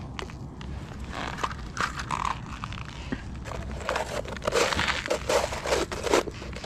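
Snow crunching in a series of irregular crunches, a short run about a second in and a louder run from about four seconds in.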